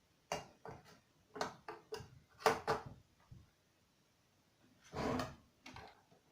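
Knocks and clacks of parts being handled and set in place on a jigsaw cutting table, then a short scraping slide about five seconds in.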